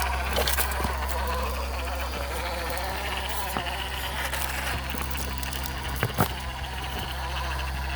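Brushless motor and gear drive of an MN82 RC crawler whining and buzzing as it climbs over rocks, with a few sharp clicks and knocks of tyres or chassis on rock about half a second in and twice around six seconds in.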